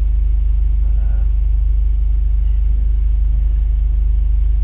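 Honda Fit's four-cylinder engine idling, heard from inside the cabin as a steady low rumble.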